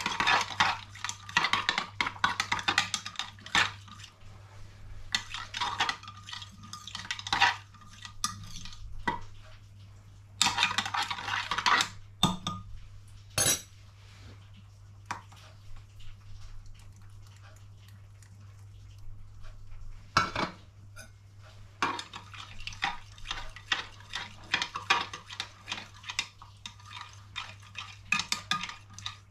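Metal spoon stirring a liquid in a glass measuring jug, clinking and scraping against the glass in quick runs broken by short pauses, over a low steady hum.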